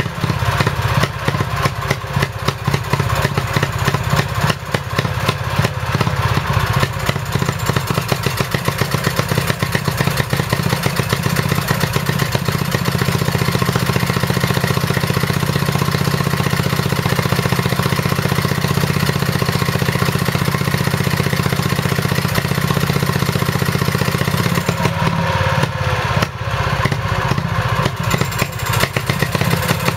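1934 Villiers WX11 (WBH) 343cc two-stroke stationary engine running with a rapid, even beat. It is still running cold, with the mixture not yet leaned off.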